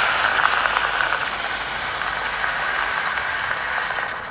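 Water poured from a steel tumbler onto lumps of jaggery in a steel saucepan, the thin stream trailing off within the first second or so, over a steady hiss that runs on after the pour stops.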